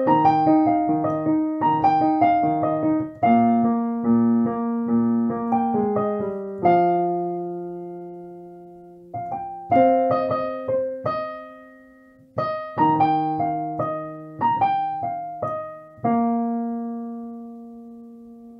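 Alesis Recital Pro digital piano played in its piano voice: a slow piece of struck chords and melody notes, its phrases dying away before the next begins. A final chord struck about 16 seconds in is held and rings out to close the piece.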